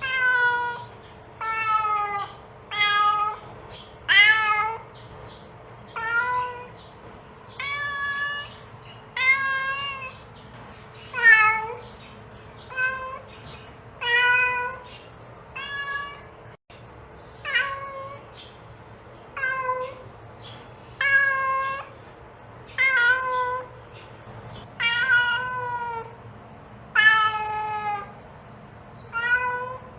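Mother cat calling her kittens: a steady series of short meows, about one every one and a half seconds, several dropping in pitch at the end.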